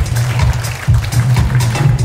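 Runway music with a strong bass line and a steady beat, about two beats a second.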